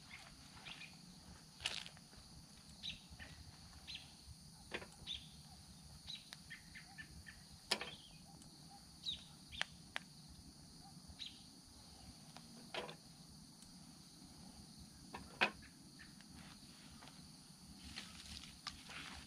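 Small twig fire crackling in a flatpack firepit, with scattered sharp pops and snaps every second or two over a faint steady high-pitched hum.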